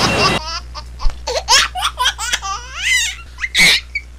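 Women laughing in short, high-pitched bursts, with one louder burst about three and a half seconds in.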